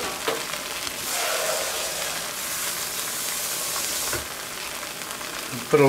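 Teriyaki broth and browned bits sizzling steadily in a hot cast-iron wok.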